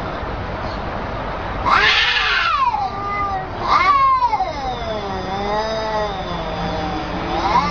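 A cat yowling in drawn-out meows that rise and fall in pitch. There are three calls, the middle one the longest and wavering.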